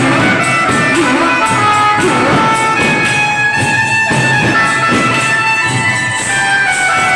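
Loud Rajasthani folk devotional music: a steady drum beat under a sustained melody line.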